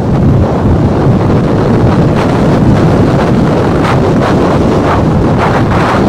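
Severe wind of about 80 km/h gusting to 90 km/h buffeting the microphone: a loud, steady low rumble with short flutters from the gusts.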